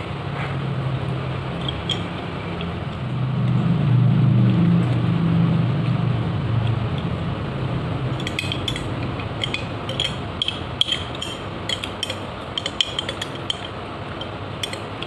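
A metal spoon scraping and clinking against a glass jar while someone eats overnight oats from it, with many small clinks in the second half. In the first half a low hum is louder than the clinks and fades out.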